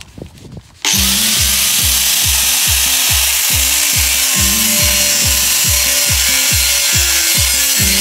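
A Bosch GWS 7-115 angle grinder cuts into the steel of an emptied gas cylinder, a loud, steady grinding hiss that starts abruptly about a second in. Music with a low beat about three times a second plays underneath.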